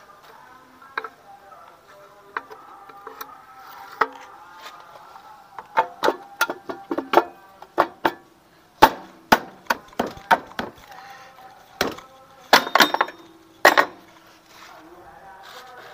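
Sharp knocks of hammering on metal parts, a few scattered at first, then coming in quick bunches from about six to fourteen seconds in.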